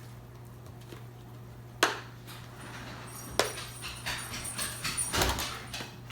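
Handling noises: a sharp click about two seconds in and another a little later, then a run of light clicking and metallic rattling, over a steady low hum.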